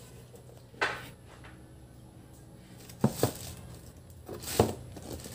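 Handling noise from a pair of sneakers and their cardboard box and plastic packaging: a few brief rustles and sharp knocks, the loudest a little over three seconds in and again about four and a half seconds in, over a faint steady low hum.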